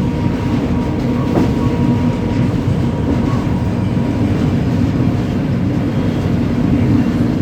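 Indian Railways WAG-9 three-phase electric freight locomotive running, heard on board: a steady rumble of the train in motion with a constant hum over it.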